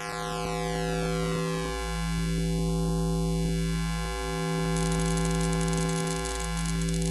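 Intro music: a sustained, buzzy synthesizer chord whose tone slowly sweeps up and down, swelling and dipping every couple of seconds. A fine high crackle joins it about five seconds in.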